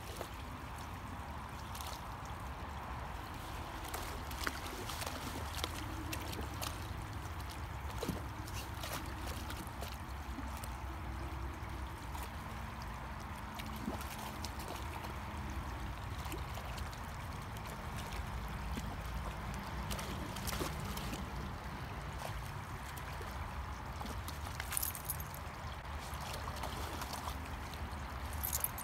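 Shallow creek water running steadily, with scattered small splashes and ticks from a dog wading in it.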